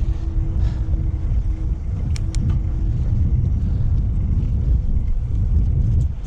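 Wind buffeting the microphone of a neckband-mounted GoPro Hero6 on a moving bicycle, recorded with the camera's wind-noise reduction turned off: a heavy, steady low rumble. A faint steady hum runs through the first three seconds, and two small sharp clicks come a little after two seconds in.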